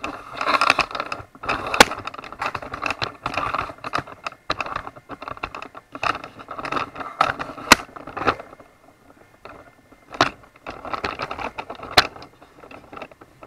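A PC tower case and its loose parts being handled and set upright: irregular rattling and scraping, broken by a few sharp clicks and knocks.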